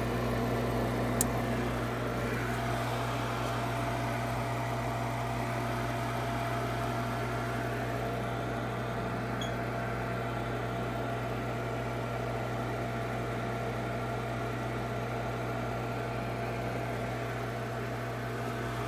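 Gas furnace running during its start-up before the igniter lights, a steady low motor hum; the furnace is back on with its faulty door switch bypassed. A small sharp click about a second in.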